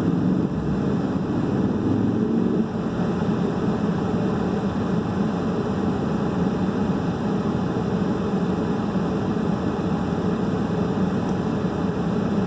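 Steady rushing hum of a heater's blower running.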